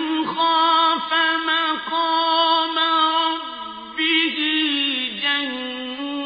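A single voice reciting the Quran in a melodic, chanted style, holding long wavering notes with brief breaks between phrases.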